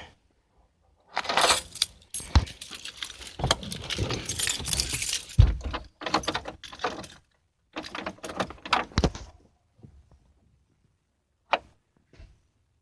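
A bunch of car keys jangling and clinking as they are handled, with scattered knocks and rustles; a single sharp click near the end.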